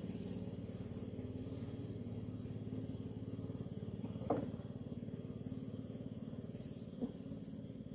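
Insects trilling steadily in a high, even tone with rhythmic pulses above it, over a low steady hum. Two brief sharp sounds come about four and seven seconds in.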